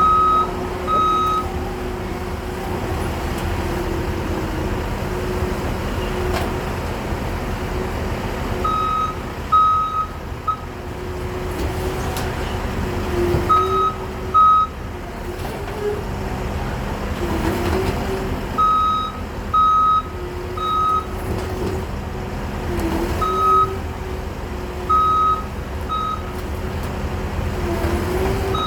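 Diesel skid steer running steadily, its engine pitch wavering as it is driven, with its backup alarm beeping in short runs of one to three beeps whenever it backs up.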